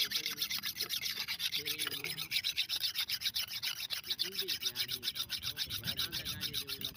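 A hand-held sharpening stone rubbed quickly back and forth over a flat steel blade, about four to five rasping strokes a second: the blade being whetted.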